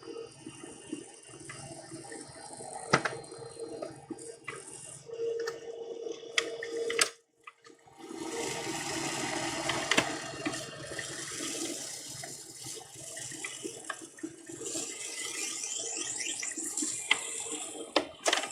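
HP LaserJet 4L laser printer printing a page: a steady mechanical whir from its running mechanism, broken by sharp clicks as the paper is picked up and fed through. The sound drops out briefly about seven seconds in.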